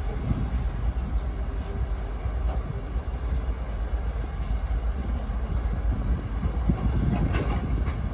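Excavator at work: a steady low diesel rumble with rattling, and a louder clank about seven seconds in.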